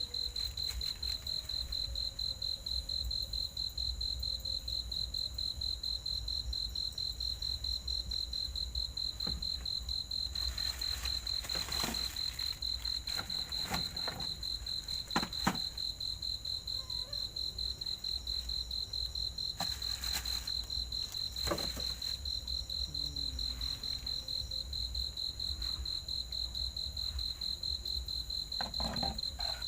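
A cricket chirping in a continuous, rapidly pulsing trill at one steady high pitch. A few soft taps and knocks come through it in the middle and again near the end.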